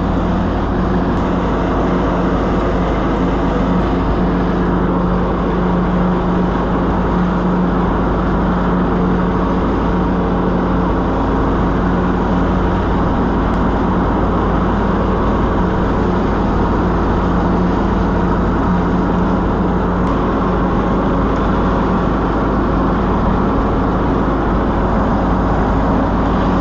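The 17 hp Briggs & Stratton engine of a John Deere 102 lawn tractor running steadily while the tractor is driven.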